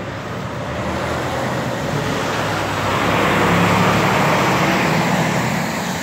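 Tractor-trailer driving past on a wet road: a diesel engine hum under tyre hiss that swells to a peak a little after halfway, then eases off.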